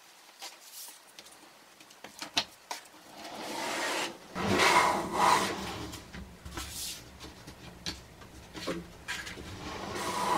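Wooden pocket door sliding along its track, rubbing lightly against the wall as it moves, with a few short knocks in the first few seconds.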